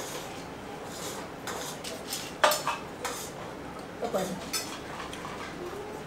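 Stainless steel dinner plates and tumblers clinking and scraping on a glass-topped table during a meal, in scattered light knocks. One sharp, ringing metallic clink stands out about two and a half seconds in.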